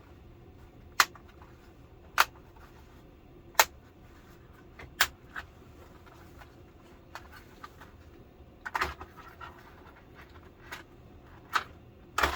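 A series of sharp clicks and snaps as parts of an LCD television are worked loose by hand during disassembly: four single clicks spaced about a second and a half apart, a quick cluster around the ninth second, and two more near the end.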